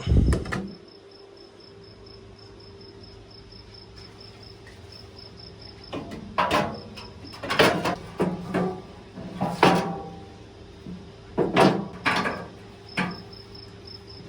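A thump at the start, then a run of about eight metal clanks and knocks, some ringing briefly, as parts are fitted onto a skid steer. Crickets chirp steadily throughout.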